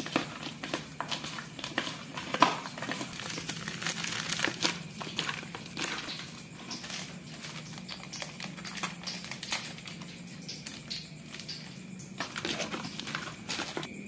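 Hands crinkling and tearing open foil spice sachets and rubbing seasoning into small plucked birds in a plastic bowl: a steady run of small, irregular rustles and clicks.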